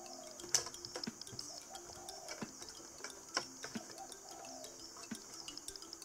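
Faint, irregular clicks and taps of hands handling the plastic side panel of a Gaggia Carezza Deluxe espresso machine, the sharpest about half a second in and again just past the midpoint.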